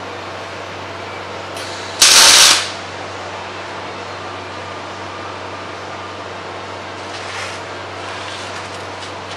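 A short, loud burst of arc welding on the steel stem plate, about half a second long and about two seconds in, over a steady fan-like hum from the welding gear.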